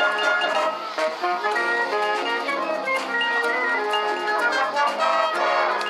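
A high school wind band playing, brass to the fore, with quick-moving notes.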